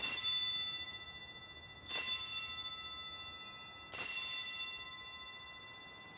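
An altar bell struck three times, about two seconds apart, marking the elevation of the consecrated host. Each stroke rings with several clear tones that fade away slowly.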